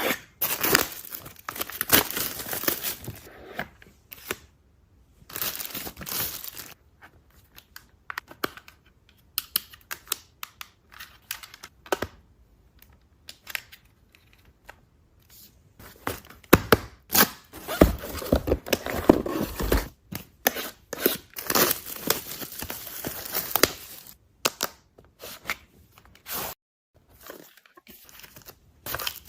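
Product packaging being unwrapped by hand: film and paper tearing and crinkling in irregular spells, with sharp clicks and taps and short quiet gaps between.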